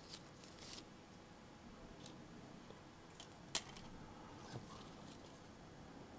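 Faint handling sounds as a guava scion is picked up and fitted to a cleft-grafted rootstock: light clicks and rustles, with one sharp click about three and a half seconds in.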